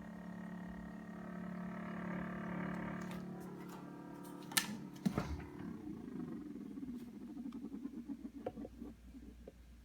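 Samsung refrigerator humming with a steady drone made of several tones. About four and a half seconds in come two loud clicks, followed by a fast fluttering rattle that fades away.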